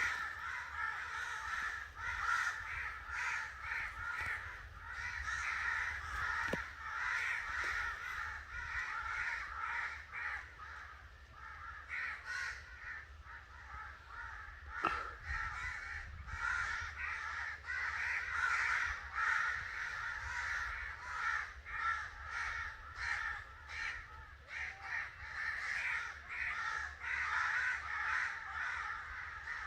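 Crows cawing in a dense chorus, many harsh calls overlapping without a break.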